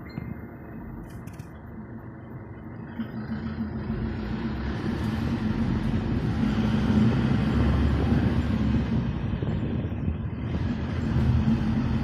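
Vehicle engine and road noise heard from inside the cab with the window open, growing louder as the vehicle pulls away and picks up speed, easing briefly near the end before building again.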